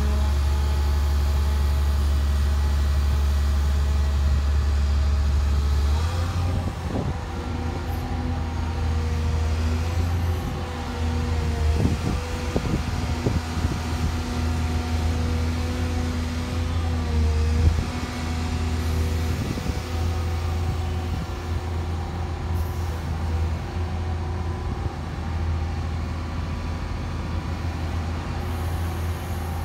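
Caterpillar M322D wheeled excavator's Cat C6.6 diesel engine running steadily while the hydraulics work the boom and stick. The engine note changes about six seconds in, and a few short knocks come through, the loudest about eighteen seconds in.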